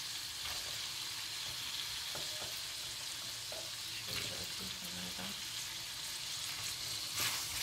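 Beef cubes, pearl onions and diced potatoes frying in a nonstick pan with a steady sizzle.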